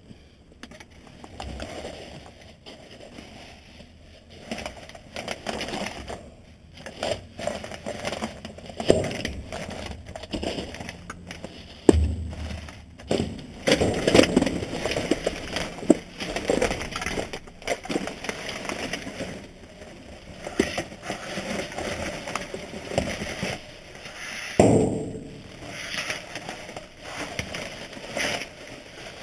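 Rummaging through garbage in a dumpster: plastic trash bags rustling and crinkling while boxes and discarded items are shifted and knock together, with a few sharper clunks and clinks, the loudest about halfway through and near the end.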